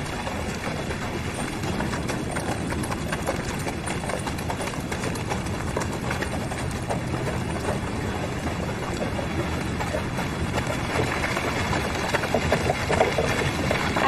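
Horses' hooves clip-clopping as horse-drawn carts and sleighs pass along a street, over a steady background hubbub, with people's voices coming up faintly near the end.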